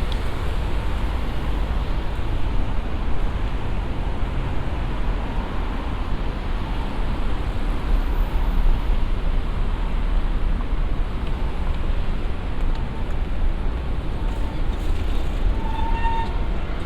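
Busy city street ambience: a steady wash of traffic and crowd noise, with a brief high pitched tone near the end.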